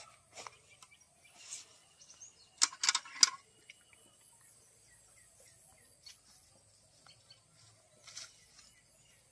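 A metal bucket's wire handle clanks sharply several times in quick succession about three seconds in as the bucket is lifted, with a few brief rustles of movement in grass. Faint bird chirps come in the middle, over a steady high hiss.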